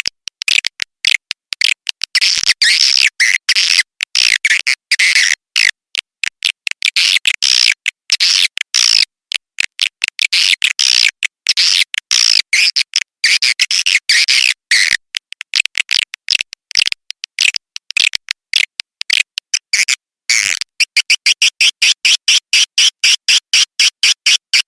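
Swiftlet call recording used as a lure to draw swiftlets into a nesting house: dense, high twittering chirps in quick runs with short gaps. About 21 s in it changes to a fast, even series of chirps, about five a second.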